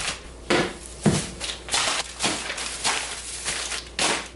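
Plastic grocery bags and food containers tossed one after another onto a kitchen countertop: a quick series of crinkling rustles and soft thumps, about two a second, the heaviest thump about a second in.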